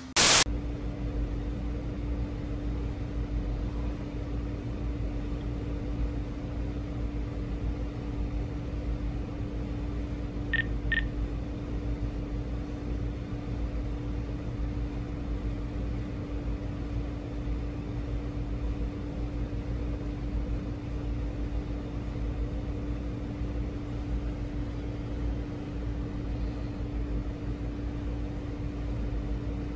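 A brief loud burst of noise, then a steady electrical hum with one strong tone over a low rumble. Two short high beeps come about ten and a half seconds in.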